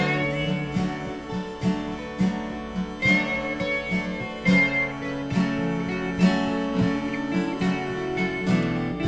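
Instrumental passage of a song between sung lines, led by strummed acoustic guitar in a steady rhythm, with a high held note about three seconds in.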